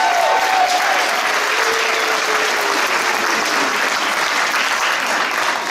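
Audience applauding steadily, with a few drawn-out voices calling out over the clapping in the first three seconds.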